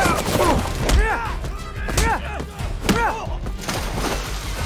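Film fight sound effects: three heavy blows about a second apart, with short grunts from the fighters and a music score underneath.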